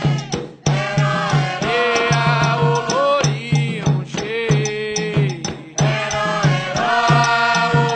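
Devotional song sung in Yoruba: a voice chants a melody, holding and bending notes, over a steady fast drum beat.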